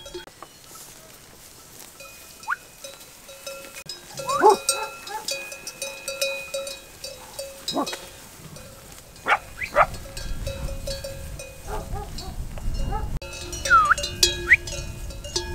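Many sheep bells clanking steadily as a grazing flock moves over the slope, with a few short sheep bleats in between.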